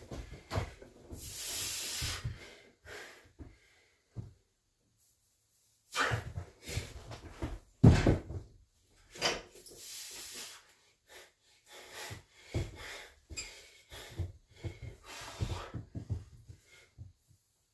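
A lifter's heavy, breathy exhalations during a set, with scattered knocks of gym equipment; the sharpest knock comes about eight seconds in.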